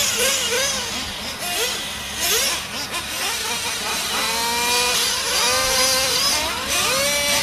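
Several nitro RC truggies' small two-stroke glow engines revving hard, each one's pitch rising and falling again and again as they accelerate and brake around the track, several at once overlapping.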